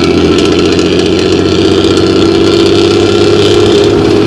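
Luragung bus's diesel engine running through its 'ngorok' snoring exhaust: a loud, steady, low drone.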